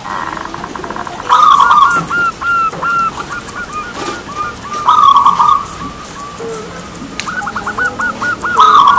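Zebra dove (perkutut) singing its long cooing song. Three times a loud rolling coo is followed by a run of short, evenly spaced staccato coo notes that fade away.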